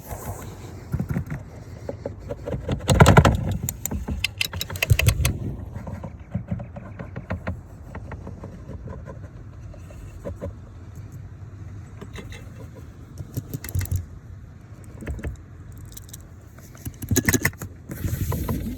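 Hand tools and metal parts clinking, rattling and knocking in irregular clusters of sharp clicks, as a blower motor is worked into place under a car's dashboard.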